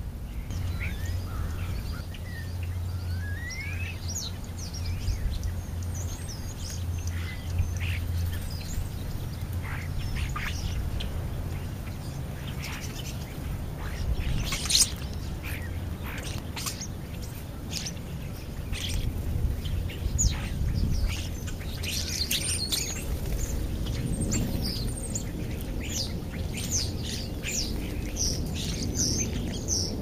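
A flock of European starlings calling: short, sharp chirps, squawks and whistles, growing busier as the birds gather to feed. Under the calls runs a steady low hum.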